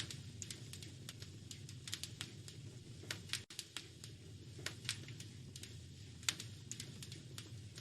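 Wood fire crackling in a fireplace: irregular sharp pops and snaps over a steady low rumble, which cuts out for an instant about three and a half seconds in.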